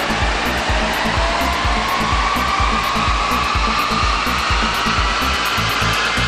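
Mercedes ML 350 CDI's V6 turbodiesel under full load on a chassis dyno during a power run: a whine climbs steadily in pitch as the revs rise, over a steady rush from the spinning tyres, rollers and cooling fan. Background music with a steady thumping beat plays over it.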